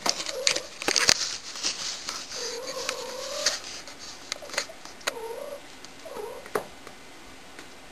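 Domestic cat making low, wavering yowls: a short one at the start, a long drawn-out one about two and a half seconds in, and two shorter ones near five and six seconds. Clicks and rustling run among the calls.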